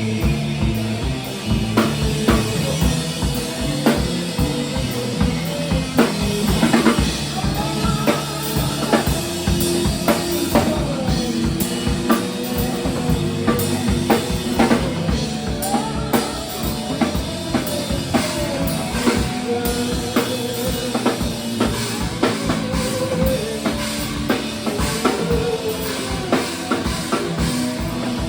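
Live punk rock band playing a song, with a loud, driving drum kit beating steadily under the rest of the band.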